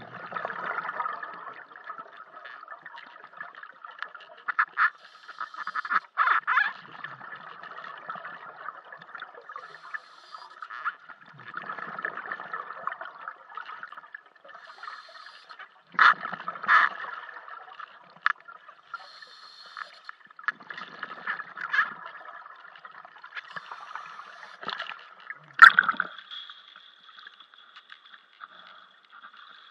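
Underwater bubbling and gurgling from a scuba diver's exhaled breath, swelling every few seconds, with a few sharp knocks. Near the end the sound changes abruptly to a steady hiss as the microphone comes up through the surface of the pool.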